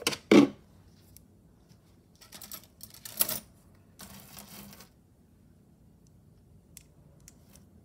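Small clicks and taps of costume and metal jewelry pieces being handled and set down, with a short rustle about four seconds in.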